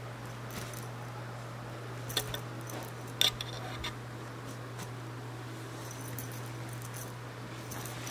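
A cat toy jingling and clicking in short scattered bursts as a cat bats and bites at it, the loudest about two and three seconds in, over a steady low hum.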